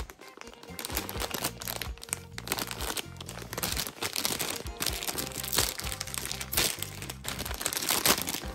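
Plastic candy bag crinkling as it is torn and pulled open, over light background music.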